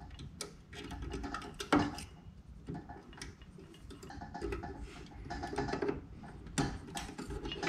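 Scattered small clicks and rustles of thin wires being handled with a knife, twisted and pushed into the push-in terminal block on a garage door opener's head unit.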